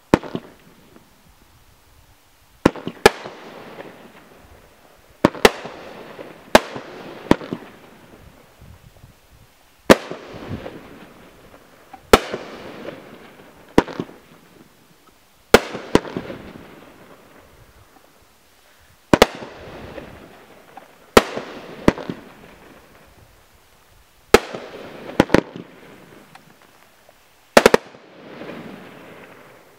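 Alien Brand 'Erupting Volcano' firework cake firing: sharp bangs about every two seconds, often in close pairs, each dying away over a second or so.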